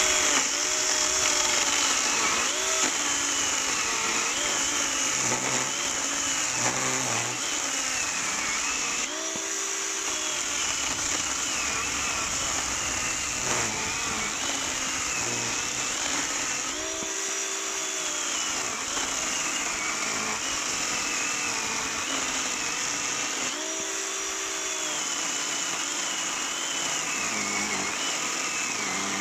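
Parkside PKSA 20-Li B2 20-volt cordless chainsaw running continuously while cutting discs off a branch about 10 to 12 cm thick. Its motor pitch sags while the chain is in the wood and climbs back to free-running speed between cuts, about three times.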